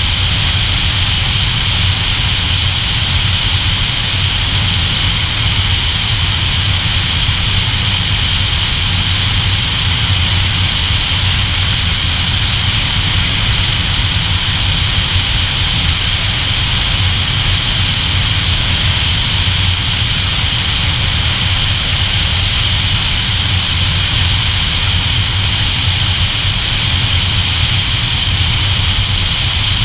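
Motorcycle cruising at a steady speed: its engine's low drone mixed with the rush of wind, even in level and pitch with no revving or gear changes.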